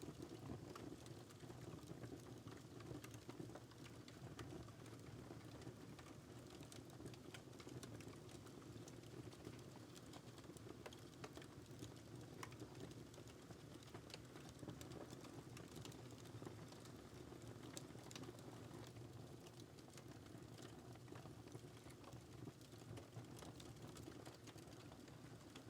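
Faint crackling wood fire in a fireplace: irregular small pops and snaps over a low steady rumble of the flames.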